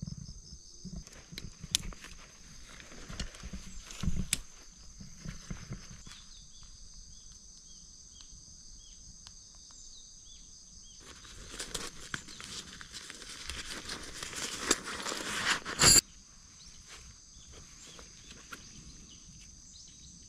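Handling noises from a nylon ground sheet and tent being laid out: scattered knocks and rustles, then a swelling rustle about eleven seconds in that stops abruptly with a sharp knock some five seconds later. A steady high-pitched chirring runs underneath.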